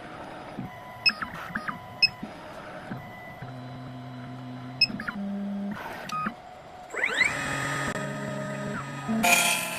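CNC key cutting machine: a few sharp clicks and short beeps as the key blank is reclamped and the machine is set going. Its motors then start a steady hum, the cutter spindle spins up with a rising whine about 7 seconds in, and near the end it begins cutting the second side of the key blank.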